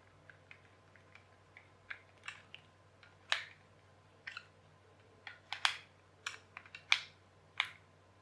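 Irregular light clicks and taps of small hard plastic parts and a small tool being handled as a little toy charger unit is worked on, with a few sharper, louder clicks in the second half.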